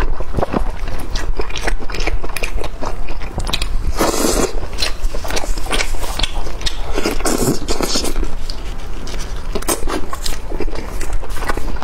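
Close-miked wet chewing of braised meat in sauce, with lip smacks and many small sticky clicks, and squelching as gloved hands pull the pieces apart.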